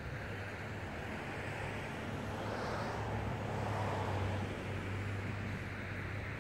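A vehicle engine idling with a steady low hum, while a passing car's road noise swells and fades around the middle.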